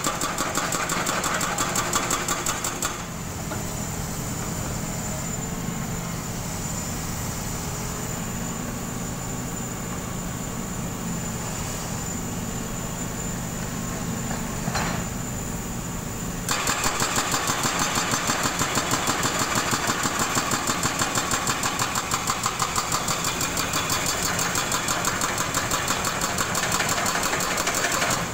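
Excavator-mounted hydraulic breaker hammering a concrete road in rapid, even blows. It stops about three seconds in, leaving the excavator's diesel engine running steadily, and starts hammering again a little past halfway.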